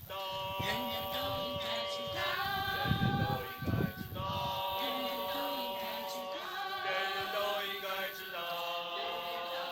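Several voices singing together in chorus, holding notes in chords that change every second or two. There are a couple of low rumbles about three seconds in.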